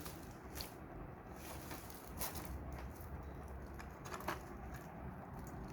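Lamps and their packaging being handled: faint rustling with a few short clicks and taps, over a low steady hum.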